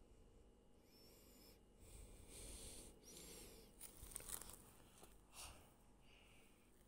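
Near silence: faint room tone with soft rustling and a few light clicks in the middle.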